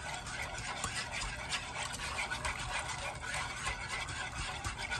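Wire whisk stirring a thin milk-based sauce in a metal pot, with a steady run of light scrapes and clicks against the pan as the sauce is whisked until it thickens.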